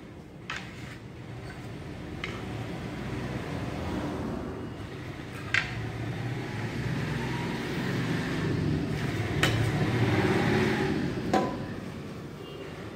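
A passing motor vehicle's rumble that swells for several seconds, peaks about ten seconds in and fades near the end. Over it come a few sharp knocks of a set square and ruler against a chalkboard.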